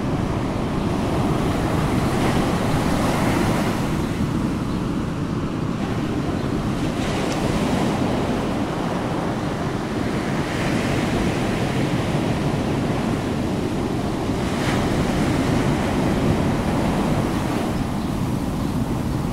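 A steady rushing noise, like surf or wind, that swells and eases every few seconds.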